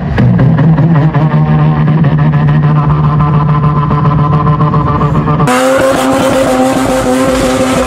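A man imitating a Mazda RX-7 rotary engine with his mouth through a stage microphone and PA, holding one steady low buzzing drone for about five and a half seconds. It then cuts suddenly to a real Mazda RX-7's rotary engine running at a steady, higher pitch.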